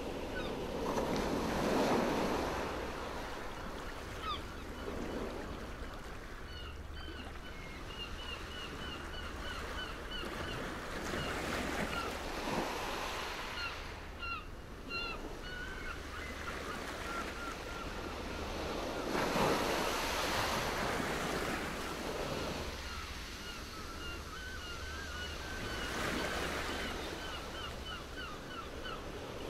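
Small waves washing onto a stony beach, the wash swelling every few seconds, with quick runs of short high chirps over it.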